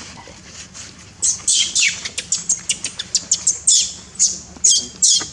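Baby macaque screaming: a rapid run of shrill, falling squeals starting about a second in, then slowing to about two a second.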